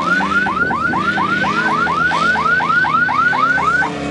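Car alarm sounding a rapid run of rising chirps, about four a second, that cuts off shortly before the end. An engine runs steadily underneath.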